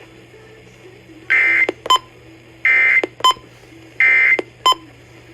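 Emergency Alert System end-of-message signal: three short, equal bursts of the screeching SAME digital data tones, about a second and a half apart, each followed by a brief click. A faint steady hum lies underneath.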